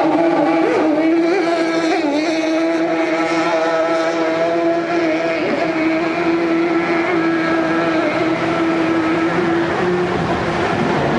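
Mercury 50 hp outboard on a plywood racing hydroplane running at high RPM, a steady high-pitched drone that drops lower near the end, over the rush of whitewater rapids.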